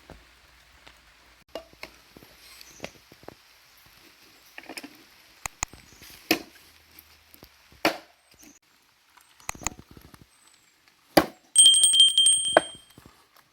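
Scattered sharp knocks and taps, then about eleven and a half seconds in a rapid run of clicks with a high ringing tone for about a second and a half.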